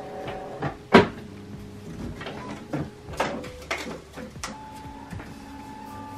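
Handling noises as sublimation paper and tape are worked around a metal tumbler: a string of knocks, clicks and rustles, the loudest a sharp knock about a second in.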